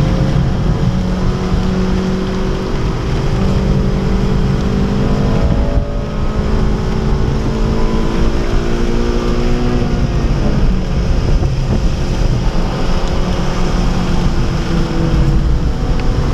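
2011 Honda Civic Si's 2.0-litre four-cylinder engine heard from inside the cabin on track: it pulls up through the revs, breaks briefly about six seconds in, climbs again, falls away about ten seconds in as the driver lifts, then builds once more. Heavy road and wind rumble runs underneath.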